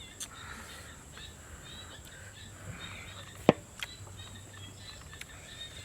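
Faint, steady outdoor background noise with a few light scattered clicks and one sharp tap about three and a half seconds in.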